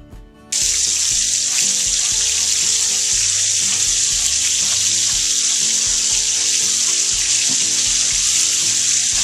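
Two bottom sirloin steaks searing in hot peanut oil in a cast iron pan on high heat: a loud, steady sizzle that starts suddenly about half a second in and cuts off suddenly near the end.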